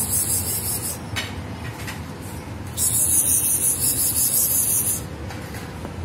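Loud, high-pitched hissing in bursts of about two seconds that start and stop abruptly, over a steady low background of outdoor noise.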